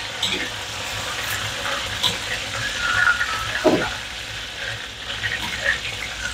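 Hot oil sizzling in a steel wok as battered beef strips are stirred and lifted out with a wire spider strainer during their second fry. Metal spatula and strainer clink and scrape against the wok a few times.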